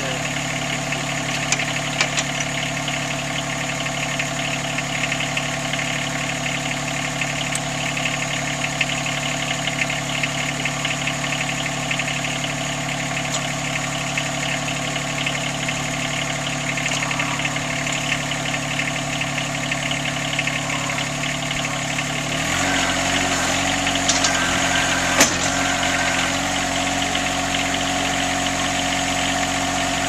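John Deere sub-compact tractor's three-cylinder diesel engine idling steadily. About 22 seconds in its note shifts and grows a little louder as the hydraulics lift the backhoe on the three-point hitch, with one sharp click a few seconds later.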